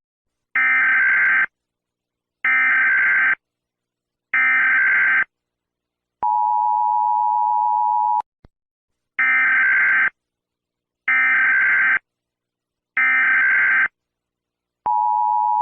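Emergency Alert System signal: three one-second buzzing SAME digital header tones about two seconds apart, then a steady two-note attention tone lasting about two seconds. The pattern repeats, with three more header tones and the attention tone starting again near the end.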